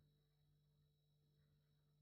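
Near silence: a refrigerator's steady hum, faded down almost to nothing.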